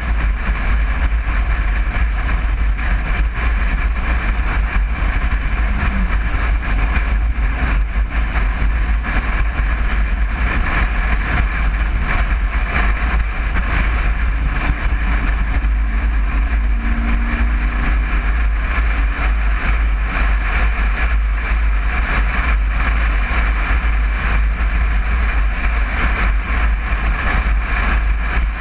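1961 VW Bus on the move, its air-cooled flat-four engine running steadily under a constant heavy low rumble of road and wind noise.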